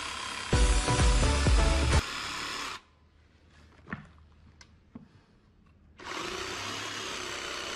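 Cordless jigsaw cutting a white plastic sheet, loud for about a second and a half, over background music. About three seconds in, the sound drops to near silence with a few faint clicks, and the music comes back near the end.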